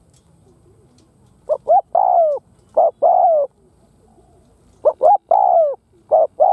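Spotted dove cooing: two songs about three seconds apart. Each is a few short coos followed by longer coos that fall in pitch.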